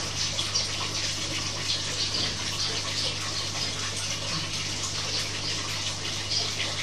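Steady background hiss with a low, steady hum beneath it.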